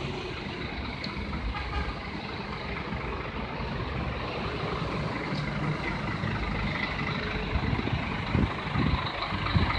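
Scania K410iB coach's 13-litre inline-six diesel idling with a steady low rumble. A few dull thumps come near the end.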